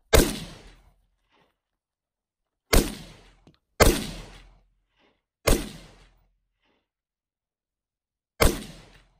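Five AR-15 rifle shots fired at an irregular pace, each a sharp crack that fades out over about half a second. Some are followed by a faint, short return from a distance.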